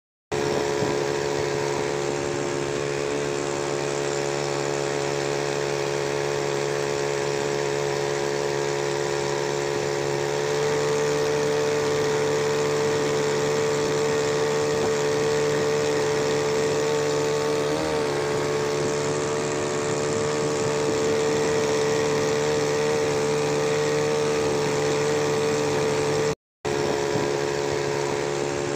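Small Matsumoto two-stroke outboard boat motor running steadily, its pitch rising slightly about ten seconds in. The sound cuts out for a moment near the end.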